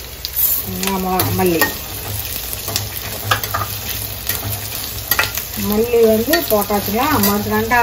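Red onion, garlic and dried red chillies sizzling as they fry in oil in a stainless steel pan, with coriander seeds tipped in and a metal slotted spoon stirring and clicking against the pan.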